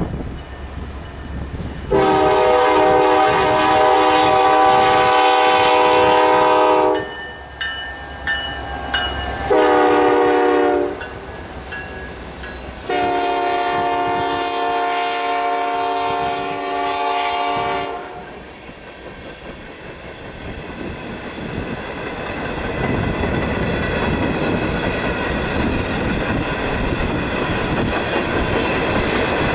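Freight locomotive air horn sounding a long blast, a short blast and another long blast as the coil train approaches, followed by the train's loaded steel coil cars and flatcars rolling past with rail clatter and wheel noise that grows louder toward the end.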